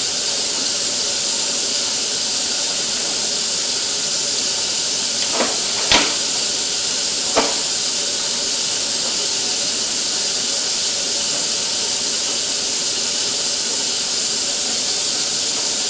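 Steady hiss with three brief knocks, at about five, six and seven and a half seconds in, the middle one the loudest.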